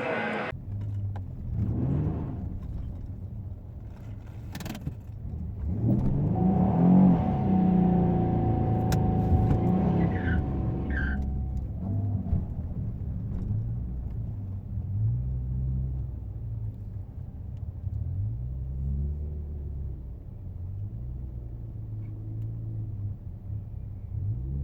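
Car engine running at low speed, its pitch rising and falling several times as it is eased on and off the throttle, with a louder, noisier stretch in the middle.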